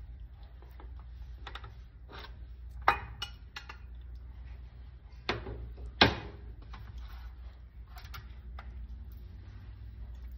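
A serving utensil clinking and scraping against a baking dish and plate as pasta bake is dished out: scattered light clicks, with two sharp knocks about three and six seconds in, over a low steady hum.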